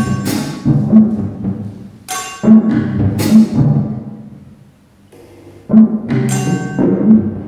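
Improvised drumming on a drum kit: low tom strokes and several cymbal crashes that ring and fade. The playing dies away a little past the middle, then toms and cymbals come in again.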